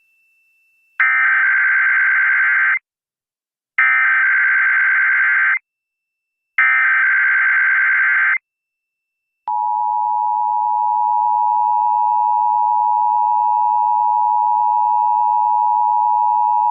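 Emergency Alert System test signal. It opens with three identical SAME header data bursts of about two seconds each, a short pause between them. About nine and a half seconds in, the steady two-tone EAS attention signal (853 and 960 Hz) starts and holds unchanged.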